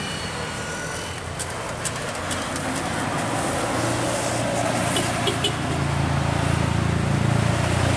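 Road traffic noise with a vehicle's engine drone growing steadily louder from about halfway through as it approaches, loudest near the end.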